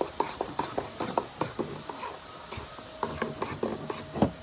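Metal spoon clinking and scraping against the inside of a small tin pail as slime is stirred: a run of irregular clicks, several a second.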